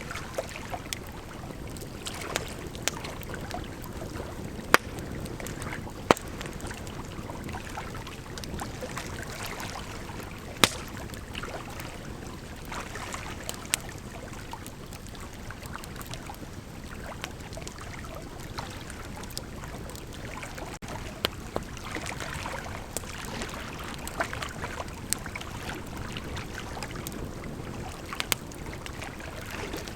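Bonfire burning: a steady rushing hiss with irregular crackles and pops throughout, a few of them sharp and loud.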